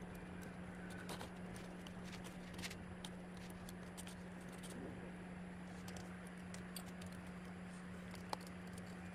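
Faint, scattered light clicks and taps of small metal parts and tools being handled while linear rails are fitted to a 3D printer's Y axis, over a steady low hum.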